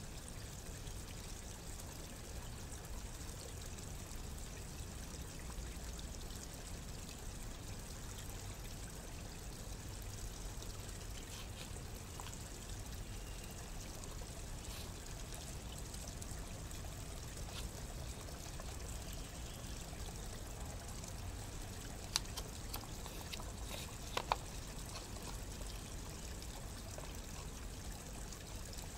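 Steady rushing background noise, with two sharp clicks about three-quarters of the way through.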